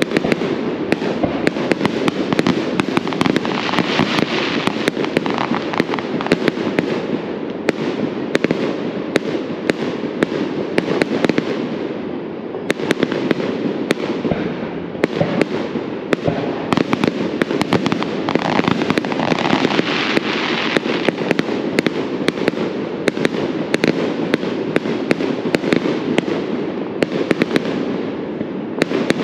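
Aerial fireworks bursting in a dense, continuous run of sharp pops and crackles over steady background noise.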